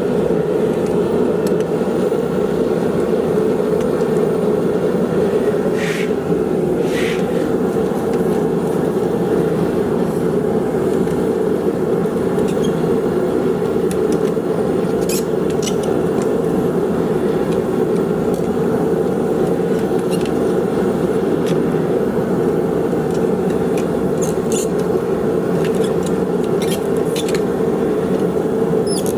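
A forge running with a steady roar, with a few faint clicks along the way.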